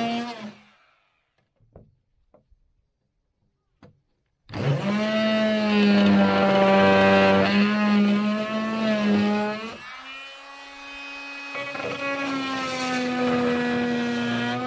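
Corded oscillating multi-tool plunge-cutting plywood, running with a steady buzzing whine. It stops about half a second in, with a few light clicks during the pause. It starts again about four and a half seconds in, then runs quieter and slightly higher near ten seconds as the blade eases off the wood.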